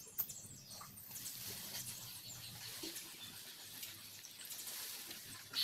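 Outdoor ambience with birds chirping faintly over a high hiss. A sharp click comes just after the start and another right at the end.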